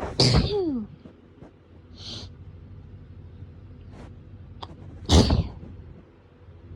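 Two hay-fever sneezes: a loud sneeze at the start whose voice falls in pitch, a softer breathy sound about two seconds in, and a second loud sneeze about five seconds in.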